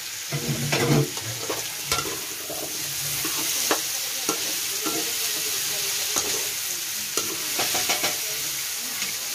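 Squash cubes sizzling in hot oil in a wok while a metal spatula stirs them, scraping and clicking against the pan now and then over a steady frying hiss.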